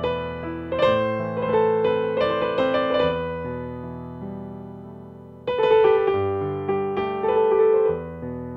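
Background piano music: notes and chords struck and left to ring and fade, with a fresh run of chords about five and a half seconds in.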